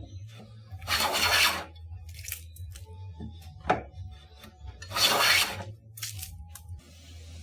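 Hand plane, set up with a depth stop and a temporary fence, making two cutting strokes through wood, each about half a second long and about four seconds apart, with light knocks between. It is a test cut on a plane restored only to working condition.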